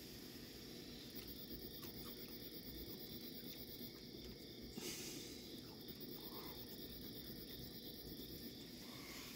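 Steady, faint high trilling of night insects such as crickets, with a few small ticks and one brief rustle about five seconds in.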